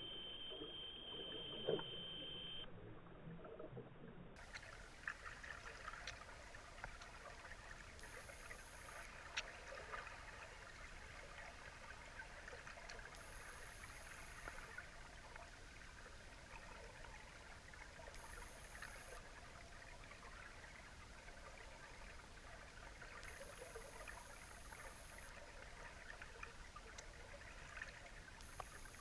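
Underwater ambience picked up through an action camera's waterproof housing: a faint, steady crackle with scattered clicks. A high steady tone comes and goes five times, each for one to two seconds. For the first few seconds the sound is duller, with a steady whistle-like tone.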